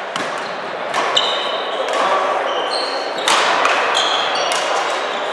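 Badminton rackets striking a shuttlecock several times, about once a second, with short high squeaks of court shoes on a wooden sports-hall floor. The hall echoes, with distant voices underneath.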